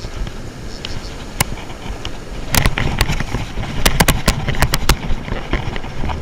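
A steady rush of surf and wind on the microphone, with a scattering of sharp clicks and knocks, most of them bunched in the middle, as the fly rod and reel are handled.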